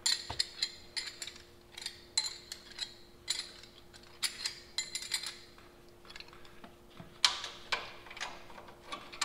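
Steel box wrenches clicking and clinking on a tight 14 mm strut top-mount nut as it is worked loose, in irregular sharp metallic clicks.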